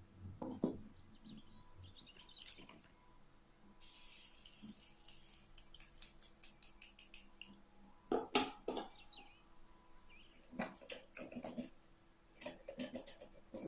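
Small metal utensils, a tiny whisk and spatula, clinking and tapping against a miniature aluminium pan. About four seconds in there is a short hiss, then a run of quick light taps at about five a second, with scattered clinks later.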